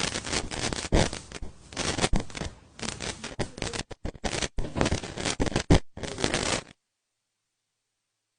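Irregular scratching, rustling and clicking handling noise, a dense run of sharp clicks and scrapes. It cuts off abruptly about two-thirds of the way through, into dead silence.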